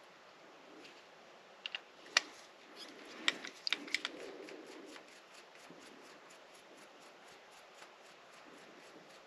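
A few sharp clicks and taps of small tools and metal parts being handled while an O gauge model locomotive is taken apart. A pair comes about a second and a half in, a louder single click soon after, then a quick cluster around three to four seconds.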